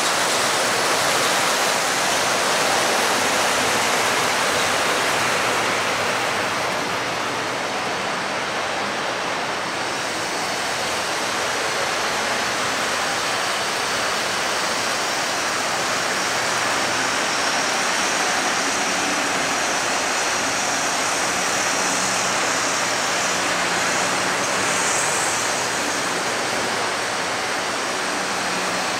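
Electric model trains running on the layout's track: a steady, even noise with a faint low hum.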